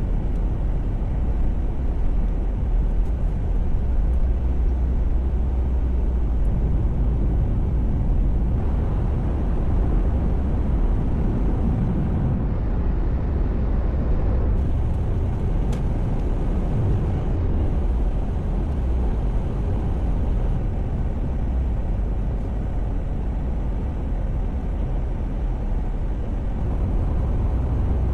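Steady low rumble of a car on the move: engine and tyre noise with no distinct events.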